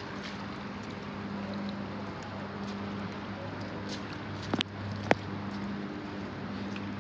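A steady low vehicle engine hum under an even rushing noise, with two sharp clicks about half a second apart a little past the middle.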